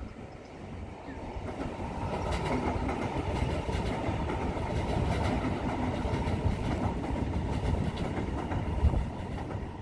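Yellow NS passenger train running past on an elevated track: a steady rumble of wheels on rails with repeated clicks. It builds up about two seconds in, with one sharp knock near the end.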